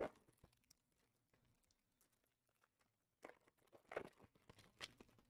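Near silence, broken by faint clicks and rustles of trading cards being handled: one at the very start and a short scatter of them between about three and five seconds in.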